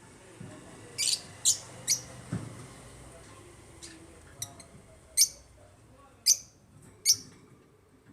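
African lovebirds giving short, high chirps, about seven in all. The calls are spaced irregularly, with three in quick succession in the first two seconds and the rest a second or so apart.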